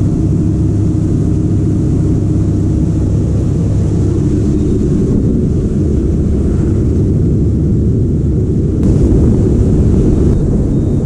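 Boat engine running steadily under way, a low rumble with wind and water noise, growing slightly louder about nine seconds in.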